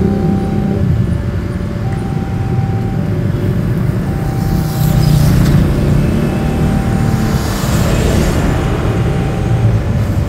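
Idling and moving motorcycles and trucks at a closed railway level crossing, a steady traffic rumble, with the crossing's electronic warning alarm sounding over it in two alternating notes, each held about a second. Two hissing rushes come about four and seven seconds in.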